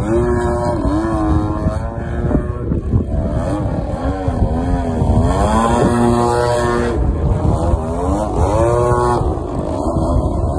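RC aerobatic propeller plane flying overhead. Its motor and propeller note repeatedly rises and falls in pitch as it throttles and swoops past.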